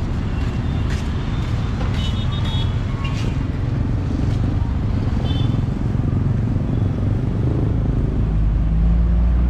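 Steady city street traffic: vehicle engines running as a low rumble, with a few light clicks, and one engine growing louder near the end.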